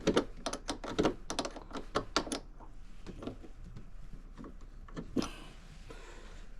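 Quick run of sharp clicks and taps from hand work on the boat's drive-cable parts, then quieter handling with a few light clicks and a short scrape or hiss about five seconds in.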